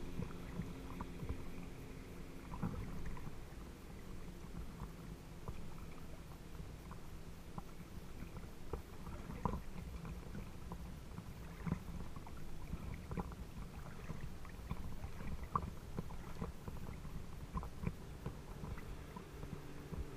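Small lake waves lapping and splashing against a camera at the water's surface, with scattered little slaps over a low rumble. A distant motorboat engine hums faintly underneath, fading over the first half.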